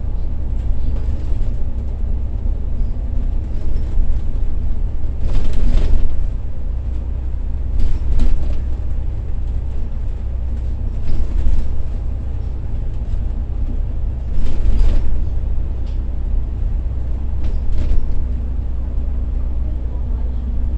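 Steady low rumble of a bus driving at highway speed, heard from inside the cabin, with several short louder rushes of noise every few seconds.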